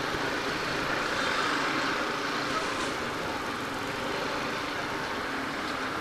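Motorcycle underway, a steady mix of engine, road and wind noise with no sudden events.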